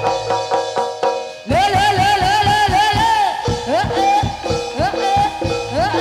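Jaranan accompaniment music: drums beating a fast rhythm under steady, ringing gong-chime notes and a melody that bends up and down in quick arches. The music drops briefly about a second in, then comes back in full.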